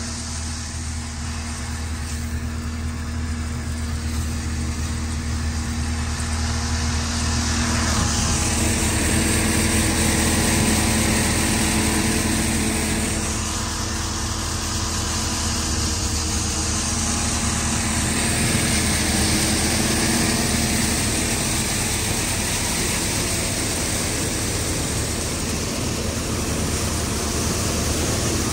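Tractor-powered thresher running steadily while threshing chickpea plants: a constant engine drone under the whirr and rush of the threshing drum and blower, growing louder after a few seconds.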